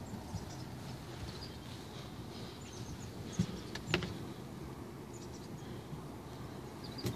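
Wind rumbling on the microphone, with small birds chirping briefly now and then and two sharp knocks about three and a half and four seconds in.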